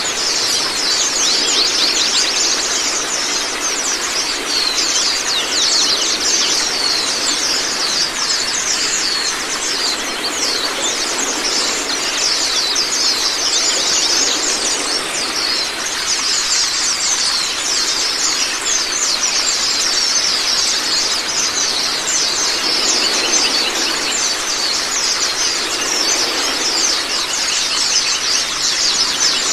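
A flock of white-eyes (Zosterops) chirping and twittering nonstop, many quick high falling notes overlapping, over a steady rush of running water.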